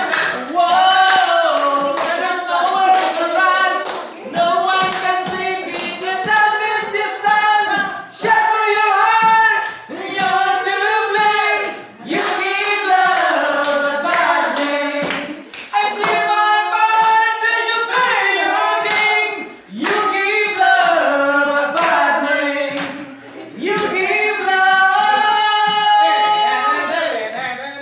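Men singing a pop song a cappella, phrase after phrase with no instruments, in a loud, boomy classroom.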